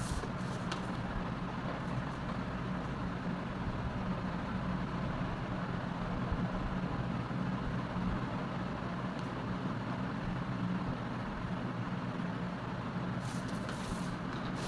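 A steady low machine hum over even background noise, with a few light clicks near the end.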